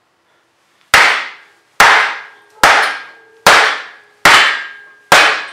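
Six sledgehammer blows at a steady pace, starting about a second in, on a wooden block set over a cylinder sleeve, driving the sleeve down into the cast-iron bore of a 1947 Ford 8N engine block. Each blow is a sharp knock with a short ringing tail.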